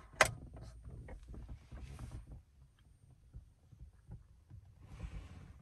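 A single sharp click about a quarter second in as the car's interior light is switched off, followed by faint rustling and small handling knocks.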